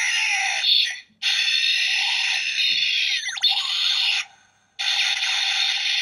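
DX Gashacon Sparrow toy bow playing its electronic finishing-attack sound effect, the Critical Finish, through its small built-in speaker. It is tinny, with no bass, and comes in three stretches broken by short gaps, with a quick swooping glide in pitch in the middle stretch.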